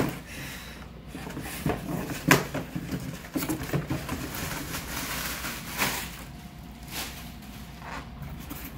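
Cardboard boxes and packaging being cut open and handled: rustling, scraping and scattered knocks and clicks.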